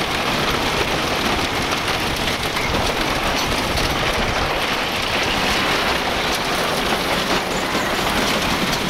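Wooden roller coaster train running along its track, a steady loud rumble and rattle with many small clacks, heard from a seat in the car.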